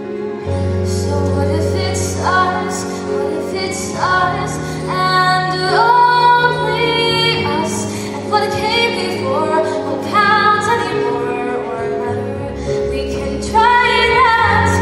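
A teenage girl singing a slow Broadway ballad, with long held notes, over an instrumental accompaniment of sustained low chords.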